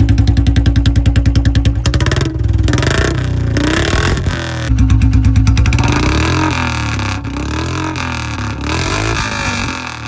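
Royal Enfield Bullet 350 single-cylinder engine with a long-bottle silencer and C-bend pipe, running with a rapid even thump and revved up twice, a couple of seconds in and again past the middle.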